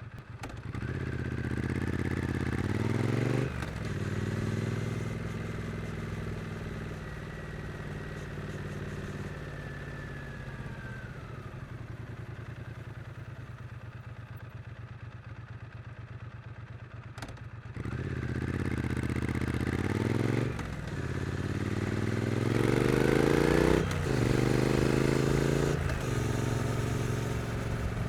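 2022 Triumph Street Twin's 900 cc parallel-twin engine accelerating hard, its pitch climbing and then dropping sharply at upshifts. In the middle it eases off to a low, even running note. About 18 seconds in it pulls hard again through two more upshifts, loudest just before the second.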